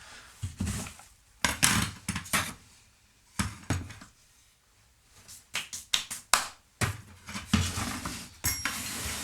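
Irregular metallic clinks and knocks of tools and a metal part being handled on a workbench, with a stretch of scraping about two-thirds of the way in, as a part is set up to be cut to length.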